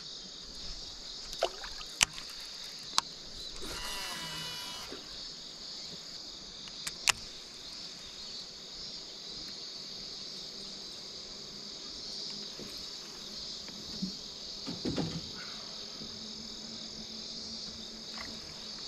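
Insects droning steadily and high-pitched. About four seconds in, a Shimano Metanium DC baitcasting reel gives its electronic-brake whine for about a second as the spool spins out on a cast, with a few sharp clicks of tackle before it.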